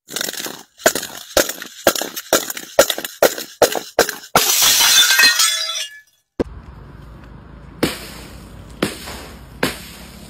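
A glass jar packed with LEGO bricks knocking down concrete steps, about ten hard knocks, then shattering in a long crash with glass and bricks scattering about four and a half seconds in. After a short gap, a steady low hum with three sharp knocks.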